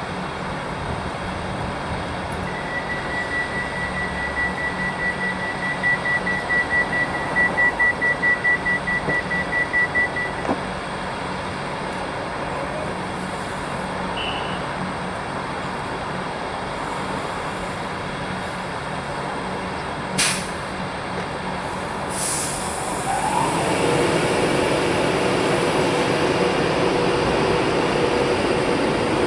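Virgin Trains express train standing at the platform, its door warning sounding as a rapid, steady string of high beeps for about eight seconds. Later come two short sharp sounds, and then the train starts pulling away, its noise growing and a steady whine coming in over the last few seconds.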